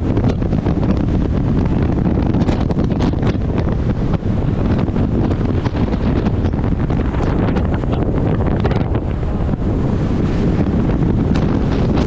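Wind buffeting the microphone of an action camera mounted outside a moving car: a loud, steady low rush with brief crackles.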